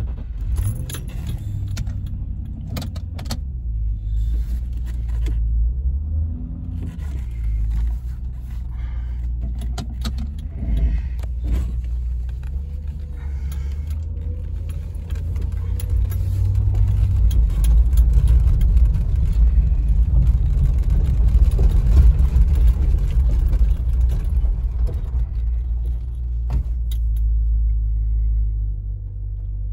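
1995 Land Rover Discovery's engine and road noise heard from inside the cabin as it pulls away and drives at low speed. It grows louder about halfway through as the vehicle picks up speed. Light clicks and rattles are scattered through it, mostly near the start.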